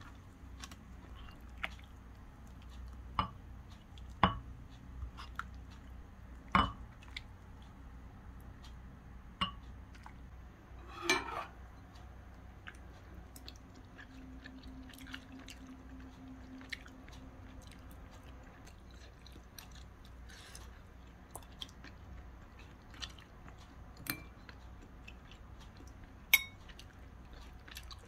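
Quiet eating sounds: chewing, with scattered irregular clicks and taps of utensils against dishes, a few of them sharper and louder.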